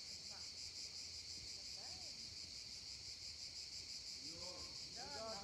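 Cicadas buzzing as a steady, high-pitched chorus, with faint distant voices about two seconds in and again near the end.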